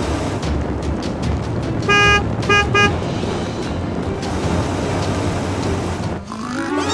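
A cartoon vehicle horn honks three times about two seconds in, one slightly longer toot followed by two short ones, over a steady low rumble. A rising pitched sound starts near the end.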